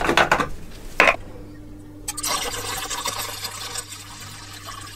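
Deionised water being poured into the tub of zinc-nickel plating electrolyte to top it up, the splashing starting about two seconds in, over a steady low hum that begins about a second in.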